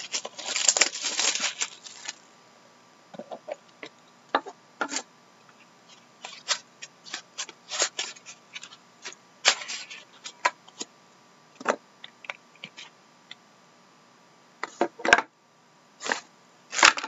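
Plastic shrink-wrap crinkling as it is torn off a box of trading cards for about the first two seconds, then scattered light clicks, taps and rustles as the box lid is lifted off and the stack of cards is drawn out of its inner tray.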